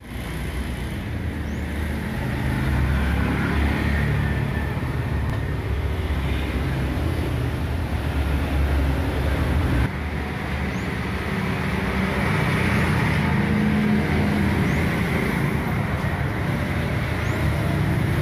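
Street traffic noise: a steady low rumble of passing vehicles.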